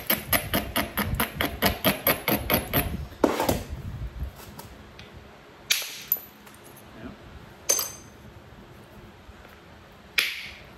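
An abrader stone scraped rapidly back and forth along the edge of a Texas chert core, about five strokes a second, to prepare the striking platform. Then a hammerstone strikes the chert with sharp, ringing clacks four times, the loudest near the start of this run and near the end; the last blow spalls off a flake.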